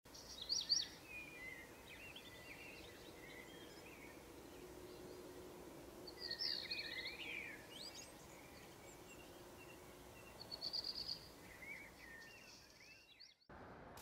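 Birds chirping and calling: scattered short chirps, whistled glides and a few quick trills over a faint steady hiss.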